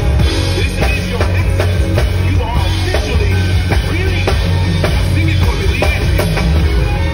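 Drum kit played live, hits on the drums and cymbals over loud music with a singing voice coming from loudspeakers.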